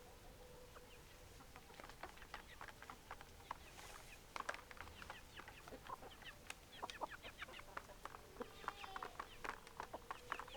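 Chickens clucking quietly while pecking at feed, with many quick sharp taps scattered among the low calls.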